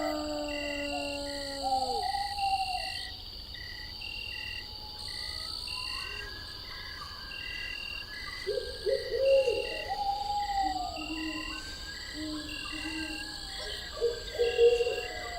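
Night forest ambience: insects chirp in a steady, even pulse throughout, while an owl hoots several times, about two seconds in, around nine to ten seconds in, and again near the end.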